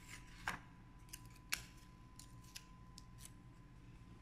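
Faint rustling and light taps of paper sticky notes being handled on a paper sheet, with two sharper clicks about half a second and a second and a half in.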